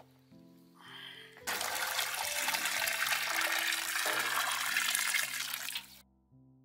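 Water poured from a galvanised metal bucket into another container: a loud, steady splashing pour starting about a second and a half in and cutting off suddenly near the end, over soft background music.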